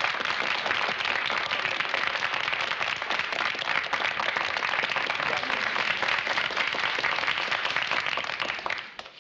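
Crowd applause, a steady dense clapping that dies away about nine seconds in.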